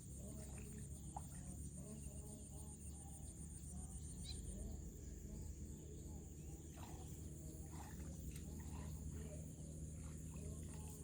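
Outdoor insect chorus: a steady high, slightly pulsing drone, with scattered short chirping animal calls over a low background rumble.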